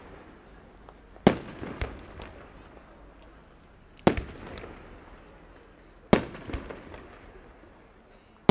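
Aerial firework shells bursting overhead: three loud bangs a few seconds apart, each followed by a couple of smaller cracks and an echo trailing off.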